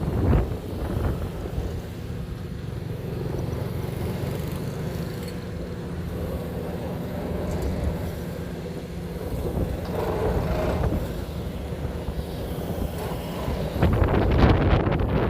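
Heavy excavator working a vibratory sheet-pile driver, its engine and machinery running steadily, growing louder at the very start and again near the end.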